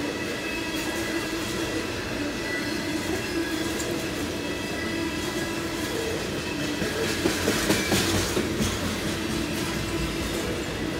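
CSX freight train's intermodal well cars rolling past: a steady rumble and clatter of steel wheels on rail, with a thin steady squeal over it. The clatter gets louder about seven to eight and a half seconds in.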